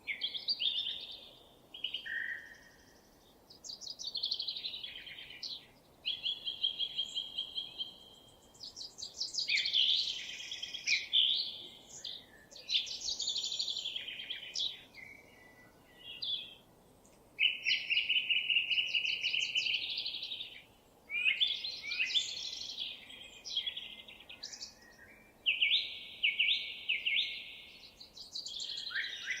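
Songbirds singing: a steady run of varied phrases and rapid trills, with short gaps between phrases.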